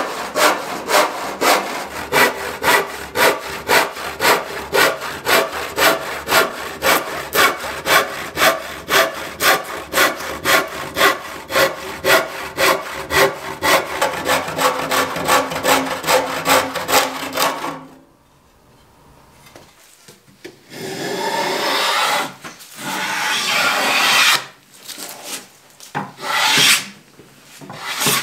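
Hand saw rip-cutting down a wooden picture-frame moulding, in a steady rhythm of strokes about two and a half a second, stopping abruptly about two-thirds of the way through. After a short pause, a few longer, uneven scraping strokes on wood follow near the end.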